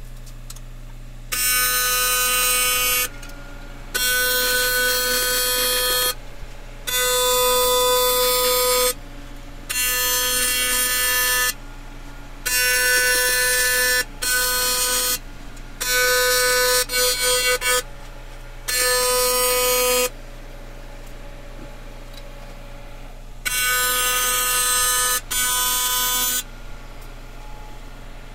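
AC TIG welding arc from a Miller Dynasty 400 buzzing on aluminum, a steady high-pitched buzz switched on and off in about ten short welds of one to two seconds each, each starting and stopping sharply.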